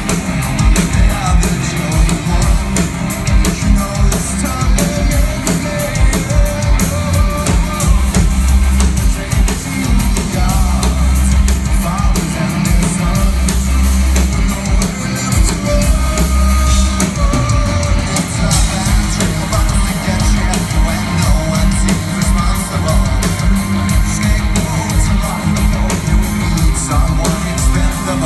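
A live rock band playing loudly, with a male lead vocal over drums and electric guitar, heard from within the audience.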